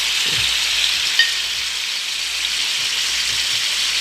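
A shallow pan of oysters, bell pepper and tomato boiling hard in broth, giving a steady bubbling sizzle. A single small click about a second in.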